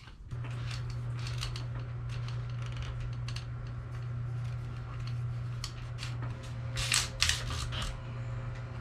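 Light clicks and rustles of a bicycle brake hose and frame being handled, over a steady low hum that comes on abruptly at the start. A louder flurry of clicks comes near the end.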